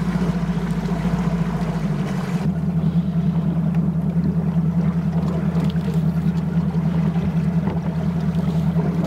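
Bass boat's motor running steadily at low speed, a constant droning hum whose low note shifts slightly about two and a half seconds in.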